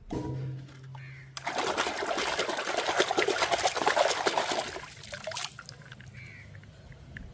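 Water running and splashing. It starts about a second and a half in and stops about four seconds later.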